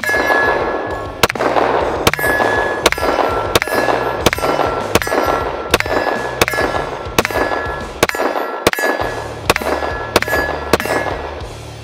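Glock 20 Gen 4 pistol in 10mm Auto fired in a steady string of about fifteen shots, a little faster than one a second, emptying a 15-round magazine.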